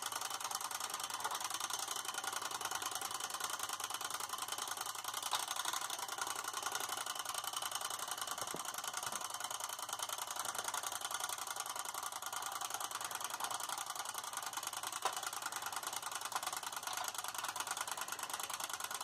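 Wind-up clockwork timer of a Perfection-style game ticking rapidly and evenly as it counts down. A few sharper clicks stand out as plastic shapes are pushed into the board.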